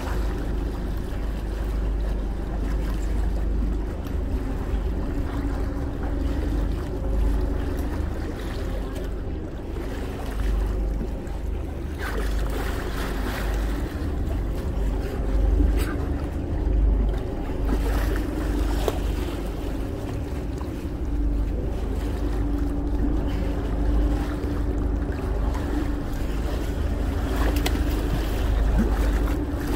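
Boat under way, with water rushing and splashing at the bow and a steady low hum. Wind buffets the microphone with a heavy rumble.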